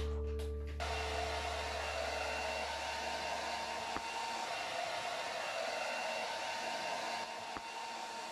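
Handheld hair dryer running steadily with a faint whine, blowing on a wet puppy's fur, starting under a second in.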